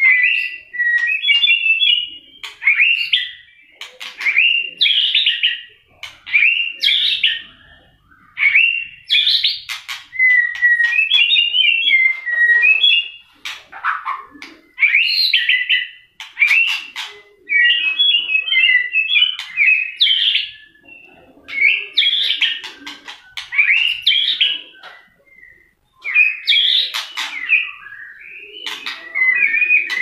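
Male white-rumped shama singing loudly in a cage: a run of short, varied whistled phrases and rapid warbles every second or two, with sharp clicks between phrases and one brief pause near the end.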